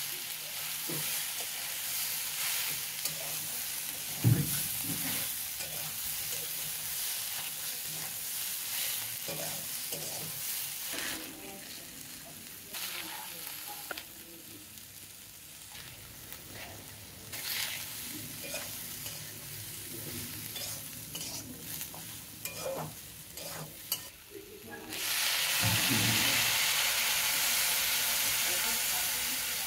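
Soya chunks, potatoes and peas frying in oil in an iron kadai, sizzling while a metal spatula stirs and scrapes the pan. About 25 seconds in, water poured into the hot pan sets off a sudden, loud, steady hiss.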